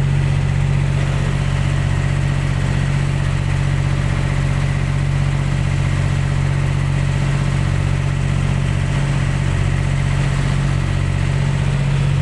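Engine running steadily at a constant speed, a low, even hum that does not change.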